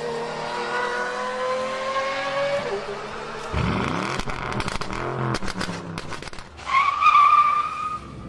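Car sound effects: an engine revving with a slowly rising pitch, then engine noise with pitch sweeping up and down and a run of sharp clicks, and a loud tyre squeal near the end.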